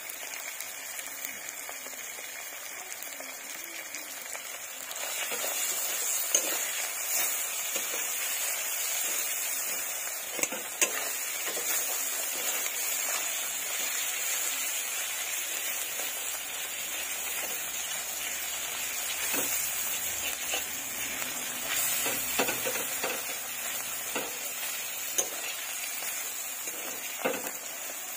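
Onions, green chillies and pieces of fish fat sizzling in oil in an iron karahi. The sizzle grows louder about five seconds in, and a spatula clicks and scrapes against the pan now and then.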